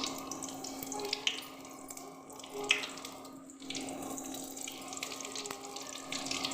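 Batter-coated potato slices frying in hot oil in a kadhai: a steady sizzle with scattered crackles and pops, one sharper pop near the middle, over a faint steady hum.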